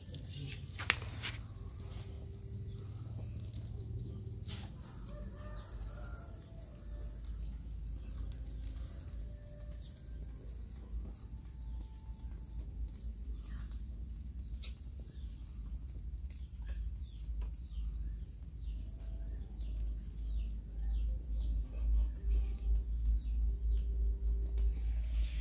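Burning matchsticks crackling with many small quick ticks, against a steady high hiss, with chickens clucking in the background. A low rumble grows louder near the end.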